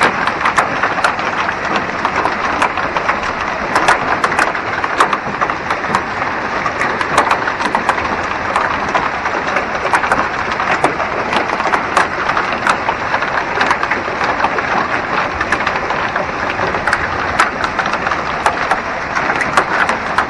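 Hail and heavy rain pelting down: a dense, steady hiss with many sharp clicks of hailstones striking hard surfaces.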